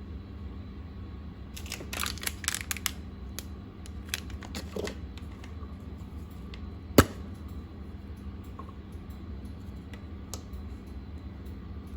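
Clear slime being squeezed and pressed by hand, giving scattered sticky clicks and pops, with a quick flurry about two seconds in and one sharp, much louder pop about seven seconds in, over a steady low hum.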